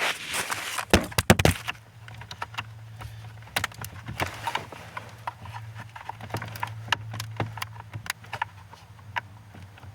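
Clicks and knocks of a metal pin and pry tool working the airbag release at the side of a steering wheel, with a cluster of loud knocks about a second in and scattered lighter clicks after, over a steady low hum.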